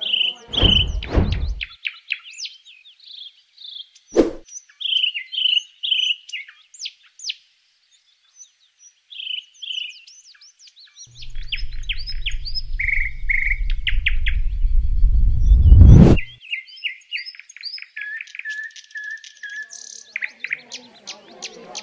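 Songbirds chirping and trilling throughout, many short high calls. About halfway through, a low rumble swells for about five seconds and cuts off suddenly; it is the loudest sound here. There are a couple of short thumps near the start.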